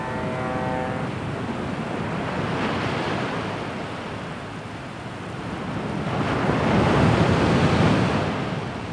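Sea waves breaking on a sandy beach, with wind; the surf grows louder about six seconds in, then fades.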